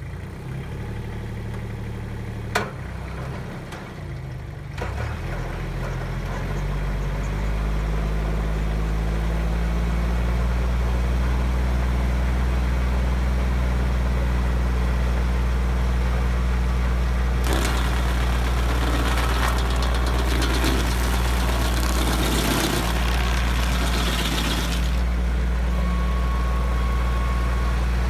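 Compact tractor engine running with a PTO stump grinder attached. There is a sharp click about two and a half seconds in, then the engine speeds up about five seconds in and holds steady. A harsh hissing noise joins it from about 17 to 25 seconds.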